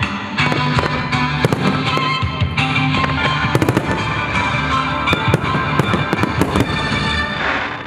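Aerial firework shells bursting in quick succession, sharp bangs and crackles that come thickest in the middle stretch, over loud accompanying music.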